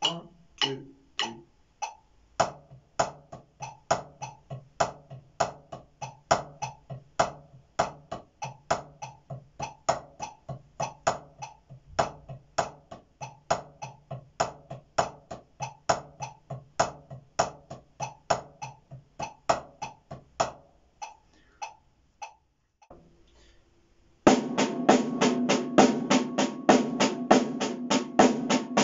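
Drumsticks playing an accented sticking exercise on two practice pads, about three strokes a second with regular accents. After a short pause, about 24 seconds in, a full drum kit comes in much louder, playing the same figure as a fill with cymbals ringing.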